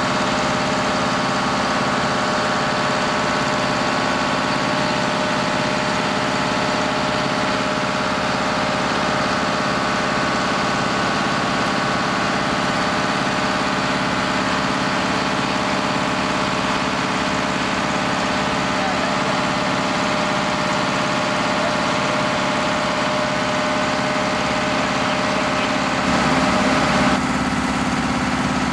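Fire engine's motor running steadily at the pump panel, driving its fire pump while it draws water through a hard suction hose. A brief louder thump near the end.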